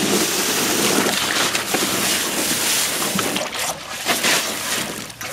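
Water from a garden hose spray nozzle jetting up and splashing into a plastic kiddie pool, a steady hissing spray. From about three seconds in, a dog bites and paws at the nozzle, breaking the spray into choppy, irregular splashes.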